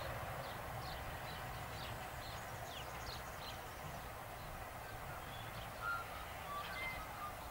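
A 280 HP Walker railmotor's diesel engine running with a steady low drone as the railcar approaches, with birds chirping over it.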